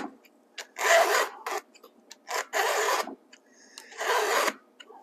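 A Stihl 2-in-1 sharpener's files rasping across a chainsaw chain cutter in three one-way push strokes about a second and a half apart, with small clicks between. This is the last cutter being sharpened.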